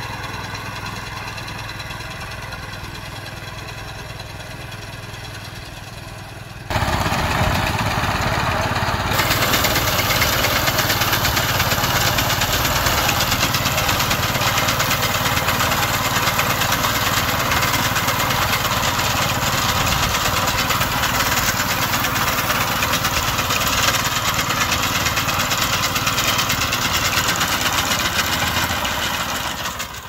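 Rebuilt rice harvester's engine running steadily. About seven seconds in, the sound jumps suddenly to a much louder, rougher engine noise that holds steady.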